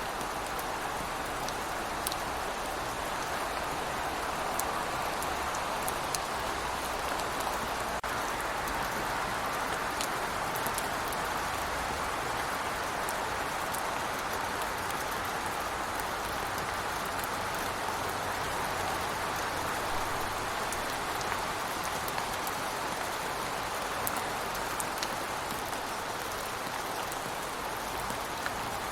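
Steady rain falling, an even hiss with scattered sharp drips and taps of drops.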